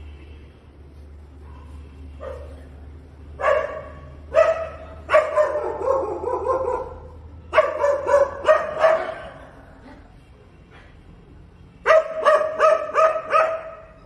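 A dog barking at a monkey in quick bursts, with pauses between them: two single barks, then two longer runs, then about five barks in a row near the end.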